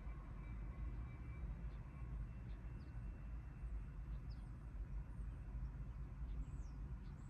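Steady low outdoor rumble with scattered short, high, falling bird chirps.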